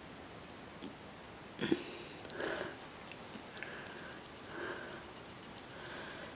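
A few short, soft sniffs about a second apart, with one sharp knock about a second and a half in.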